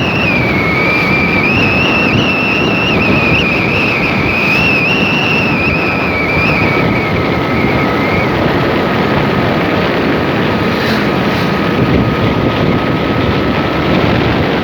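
Motorcycle running at riding speed under heavy wind noise on the microphone. A wavering high whine fades out about halfway through, and a fainter steady tone carries on until near the end.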